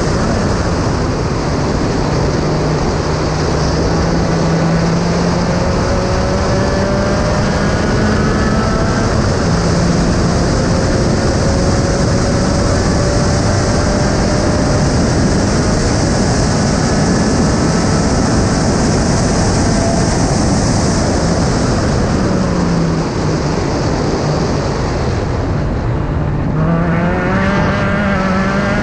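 Onboard sound of a Spec Racer Ford Gen3 race car's four-cylinder engine at speed on track, under heavy wind rush: the engine note climbs slowly as the car pulls down a straight, with a brief dip about nine seconds in. It falls away as the car slows for a corner a little past twenty seconds in, then climbs again as the car accelerates out near the end.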